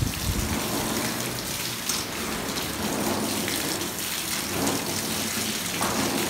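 Water sprayed from a hose onto wire-mesh animal cages and their floors, a steady hiss and patter like heavy rain. A brief low thump comes right at the start.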